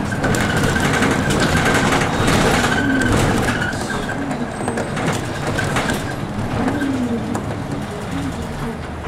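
City bus running in traffic, heard from inside the cabin: engine and road noise, with the engine note rising and falling as the bus speeds up and eases off.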